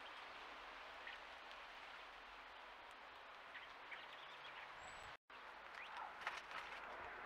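Faint short chirps of house sparrows, scattered and coming a little thicker near the end, over a steady hiss; the sound cuts out for an instant about five seconds in.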